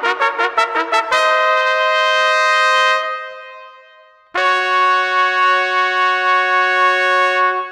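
Brass fanfare. A quick run of rapidly repeated notes gives way about a second in to a held chord that dies away. After a short gap, a second held chord sounds and stops near the end.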